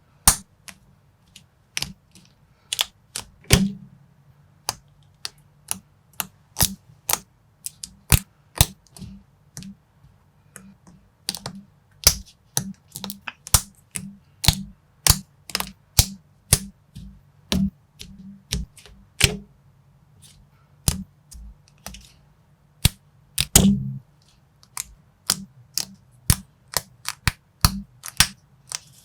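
Plastic building bricks clicking and snapping together as they are pressed into place by hand: irregular sharp clicks, one to three a second, with a couple of louder snaps.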